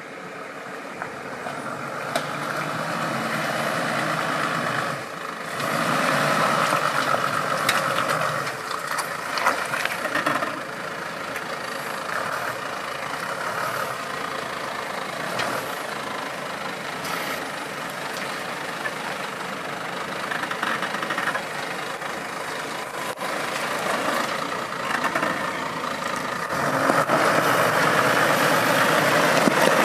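Off-road 4x4 vehicle engine running under load as it drives over rough ground, rising and easing in level, with several sharp knocks and clatters along the way. It gets louder near the end.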